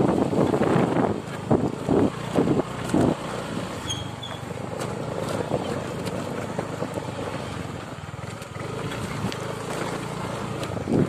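Motorcycle running while riding along a dirt track. It is loudest and most uneven in the first three seconds, then steadier.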